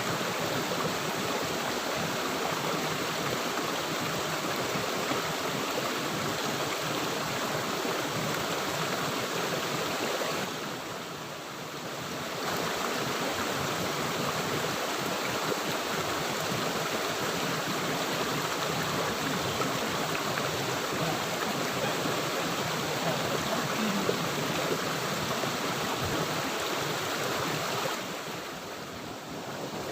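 Steady rushing of a flowing river, dipping briefly twice.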